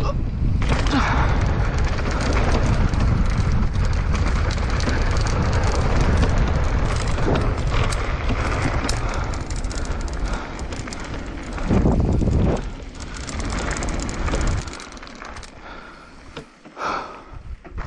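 Mountain bike descending a dirt trail at speed: wind rumbling on the mic, with tyres and bike rattling over the ground. It quietens sharply about three-quarters of the way through as the run slows.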